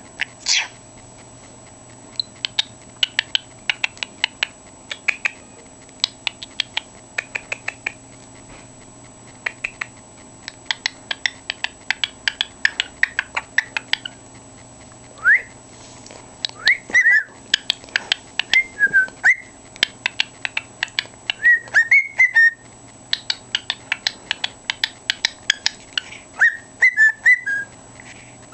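A pet cockatiel singing. Over the first half come bursts of quick clicking chatter. From about halfway on, loud whistled phrases follow, with notes that rise, fall and warble.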